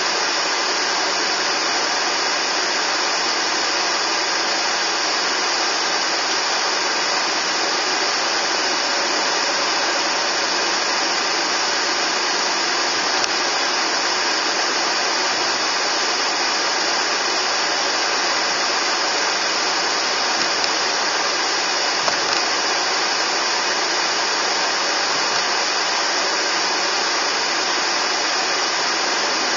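Steady, even rushing noise inside a moving car, with no distinct engine tone or separate events.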